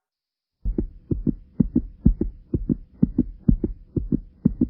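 Rapid heartbeat sound effect: paired lub-dub thumps about twice a second, starting about half a second in, over a faint steady hum.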